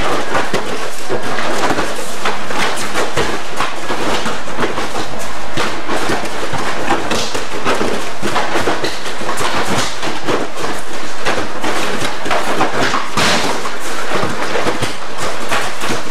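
Repeated thuds and slaps of aikido practitioners being thrown and breakfalling onto training mats, mixed with footfalls and the rustle of cotton gi, at irregular close intervals.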